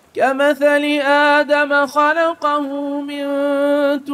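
Male voice chanting Quran recitation in melodic tajweed style, unaccompanied. It enters with a rising note just after the start, moves through ornamented turns, then holds one long steady note for the last second and a half.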